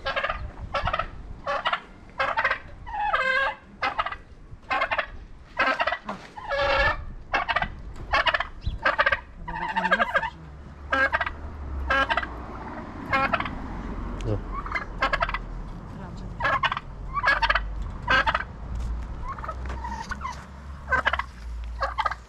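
Farmyard poultry calling over and over in short, loud calls, about two a second at first and more spread out after about ten seconds.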